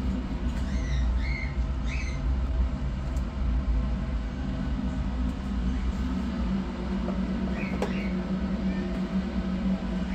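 Young kittens giving a few tiny high-pitched squeaks: several in the first two seconds and a couple more near eight seconds in, over a steady low hum.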